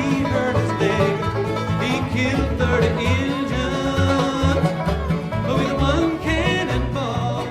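Bluegrass-style music with banjo and guitar playing at a steady beat.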